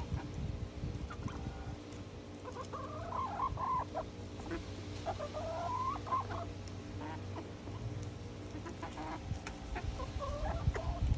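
A small flock of hens clucking, with three bouts of wavering, drawn-out calls.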